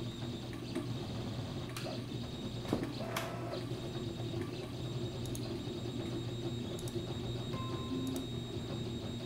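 Steady low electrical hum with scattered faint clicks, and near the end a couple of short faint steady tones.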